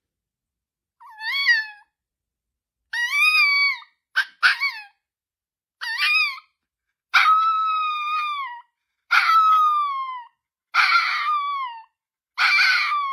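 A dog howling in a string of high, drawn-out calls, each falling in pitch at its end, with a couple of short yelps early on and longer howls toward the end.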